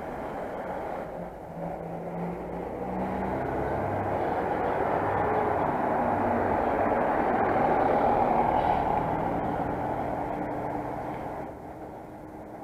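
A vehicle passing nearby: a steady rushing noise that swells over several seconds and then falls away sharply near the end.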